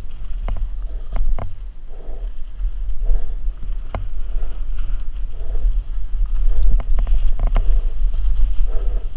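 Downhill mountain bike rolling fast down a dirt trail, heard from a helmet camera: a steady low rumble of wind buffeting the microphone and tyres on dirt, broken by sharp clacks and rattles as the bike hits bumps.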